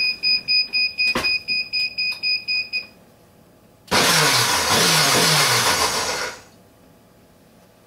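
Ladyship blender's control panel beeping about four times a second, with a click about a second in. Then its motor runs loudly for about two and a half seconds before winding down.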